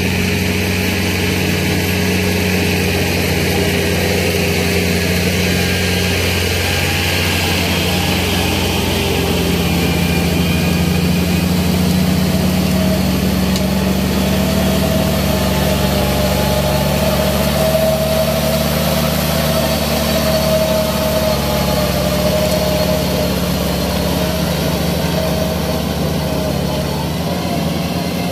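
Kubota L5018 tractor's diesel engine running steadily under load while it pulls a rotary tiller through a rice paddy. A higher whine comes up in the middle, when the tractor is closest, and fades again as it moves away.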